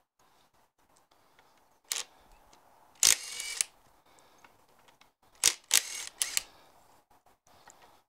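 Makita cordless impact wrench run in short bursts, undoing the six bolts that hold a tractor gearbox's front pinion bearing carrier; the longest burst, about half a second, comes about three seconds in, with more around five and a half to six seconds.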